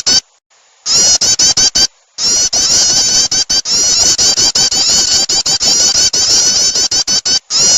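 Recorded prinia (prenjak) calls played as a bird lure: a rapid, scratchy chatter of short, high notes, broken by brief pauses just after the start and about two seconds in.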